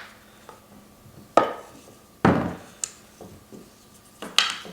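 Wooden bottle display case being handled and opened: three hollow wooden knocks and clunks with a faint click between them, the loudest about halfway through.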